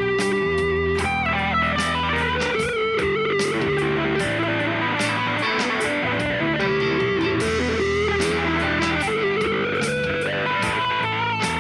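Artist TC59 Telecaster-style electric guitar playing a sustained, melodic lead line over a backing of steady bass notes and regular drum ticks.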